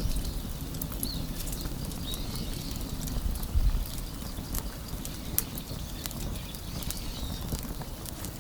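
Wood fire crackling in a stainless-steel fire pit: irregular sharp snaps and pops over a steady low rumble.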